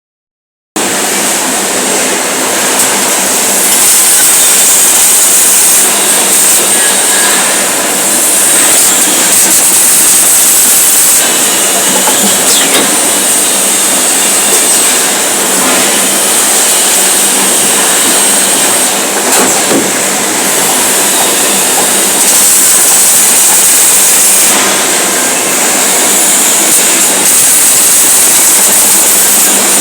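Welding work: a loud, steady hiss and crackle with small swells in level.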